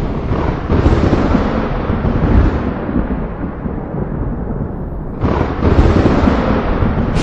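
Heavy rumbling booms from a sound-effects track: a continuous deep rumble with two sudden blasts, one about a second in and one about five seconds in, each fading away over a couple of seconds.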